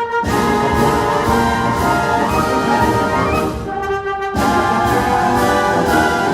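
Background music: an orchestra with prominent brass playing held chords, with a short break about four seconds in.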